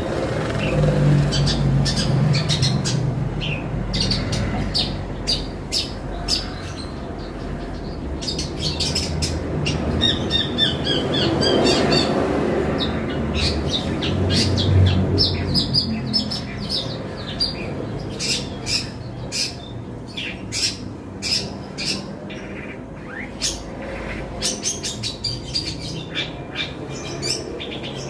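Long-tailed shrike (cendet) singing a run of rapid, harsh chirps and squawks mimicking fighting tree sparrows, over a low background rumble that swells in the middle.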